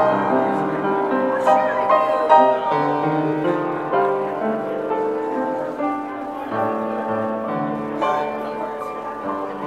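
Upright piano played solo: a prelude of held chords under a moving melody, the notes changing every second or so.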